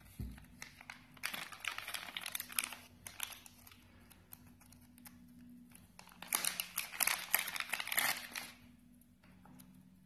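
Clear plastic bag crinkling as it is handled and opened and a clip-on microphone with its cable is pulled out. The crinkling comes in two spells, about a second in and again about six seconds in, and the second is louder.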